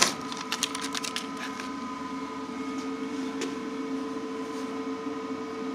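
A few sharp clicks and knocks of camera handling in the first second and a half, over a steady electrical hum made of several fixed tones.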